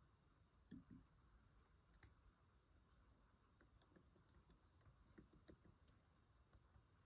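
Faint key clicks from a MacBook Air laptop keyboard being typed on: scattered taps, coming more often after the halfway mark, with one soft low knock about a second in.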